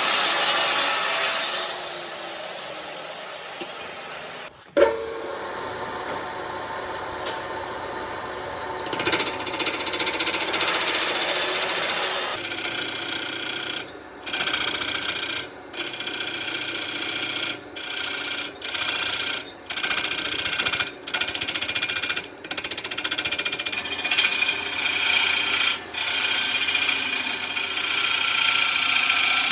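A power tool working on wood, a steady hissing grind. There is a sharp knock about five seconds in, the tool gets louder from about nine seconds, and in the second half it stops and starts several times in quick breaks.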